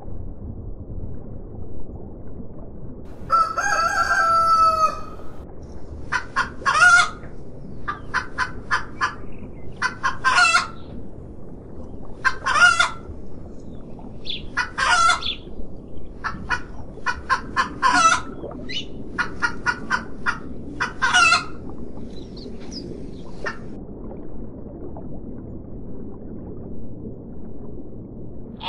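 Chickens: a rooster crows once, then hens cluck and squawk in a long run of short repeated calls. The calls die away, leaving only steady low background noise for the last few seconds.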